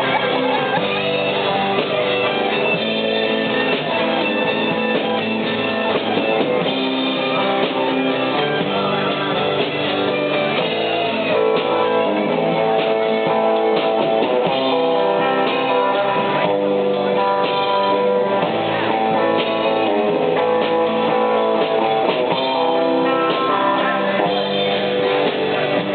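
Live band playing an instrumental passage led by guitar, with no singing.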